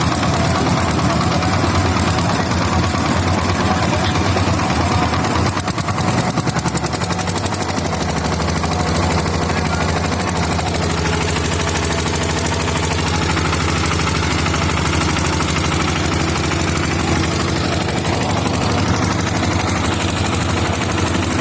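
Boat engine running with a rapid, even chugging pulse, its tone rougher at first and settling into a steady pitch about a third of the way in.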